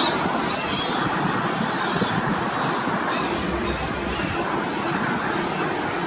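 Jet engine roar of MiG-29 fighters, a steady rushing noise that slowly fades.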